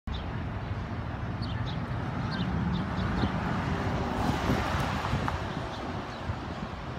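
City street ambience: a steady low rumble of passing traffic, growing a little louder about four seconds in, with a few faint bird chirps early on.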